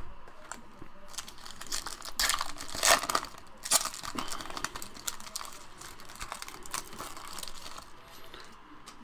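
A trading card pack's wrapper being torn open and crinkled, a run of irregular crackly rustles, loudest about three seconds in.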